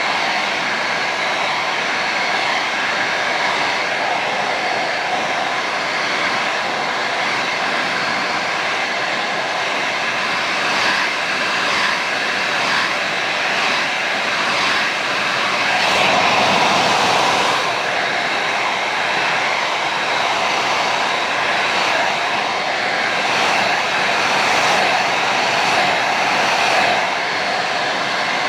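Handheld hair dryer running: a steady rush of blown air with a faint motor whine, swelling louder for a moment about sixteen seconds in.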